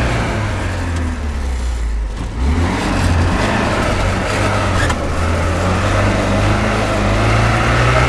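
UAZ Bukhanka van's engine running on the move. It eases off about two seconds in, then picks up again and runs on steadily.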